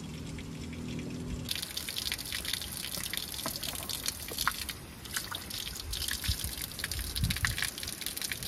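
Water running from an outdoor tap and splashing onto stone, with irregular spatters and drips as food is rinsed under it; the splashing starts about a second and a half in.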